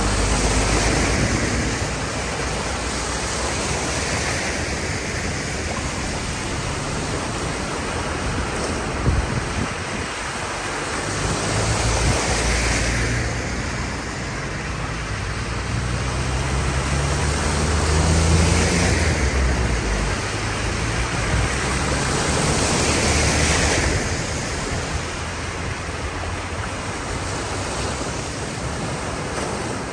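Cars driving one after another through floodwater on a road, each passing with a swelling splash of spray, about five times, over a steady rush of water flowing across the road. A low engine rumble builds in the middle.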